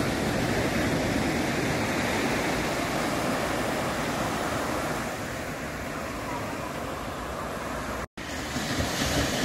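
Steady rush of small waves breaking on a sandy beach, with a low rumble of wind on the microphone. The sound drops out for an instant near the end.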